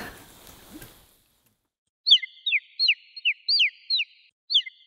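After about two seconds of silence, an edited-in comic sound effect of birds tweeting: quick whistled chirps, about three a second.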